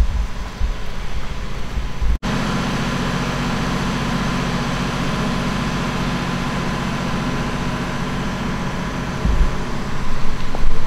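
Gusts of wind rumbling on the microphone, broken by a sudden dropout about two seconds in, followed by a steady low mechanical hum. The wind gusts return near the end.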